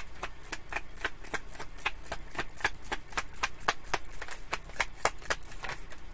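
Tarot deck being shuffled by hand: a steady run of quick card clicks and snaps, about five a second.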